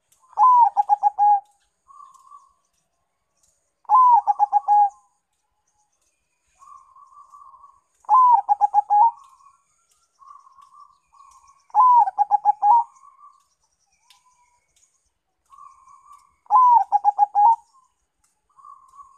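Zebra dove (perkutut) of the local Bangkok type singing its cooing song five times, about every four seconds: each phrase an opening note that drops in pitch, then a quick run of about five short coos. Softer, shorter trilling notes come between the phrases.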